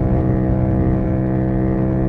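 Yamaha MT-07's parallel-twin engine through a full Akrapovic titanium exhaust, running at a steady engine speed with no rise or fall in pitch.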